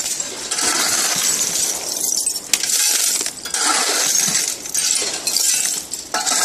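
Shredded aluminium scrap clattering and clinking as a shovel is driven into the pile and its load dropped into a metal tub, several scoops in a row. One sharp click stands out about two and a half seconds in.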